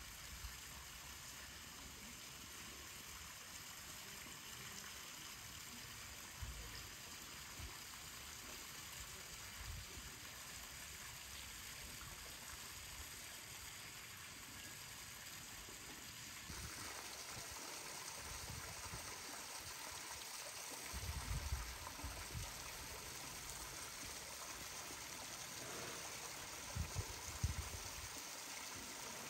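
Steady, faint rush of running water that grows a little louder a little over halfway through, with a few soft low thumps.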